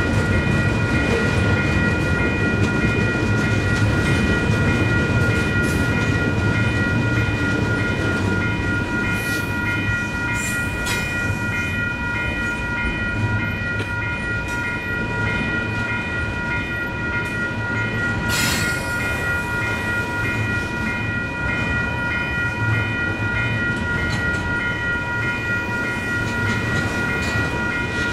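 Double-stack intermodal freight cars rolling past on the rails, with the wheels clattering over the track, while the crossing's WCH Type 4 electronic bells ring steadily. A brief sharp metallic screech cuts in about two-thirds of the way through.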